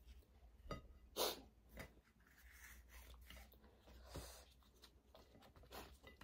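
Faint sounds of hands handling food at a plate: a few soft taps and rustles as roti is torn and picked over, the loudest about a second in.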